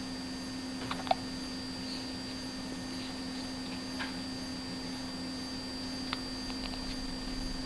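A person hiccuping: short, sudden hiccups about a second in, near four seconds and near six seconds, the first the loudest, over a steady background hum.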